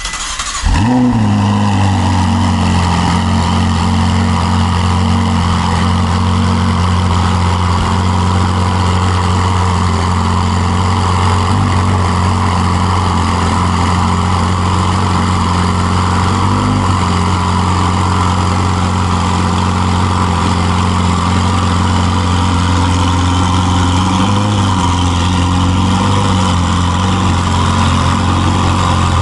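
Ferrari 488 Spider's twin-turbo V8 starting with a short rising rev, then idling steadily, its pitch wavering briefly a few times.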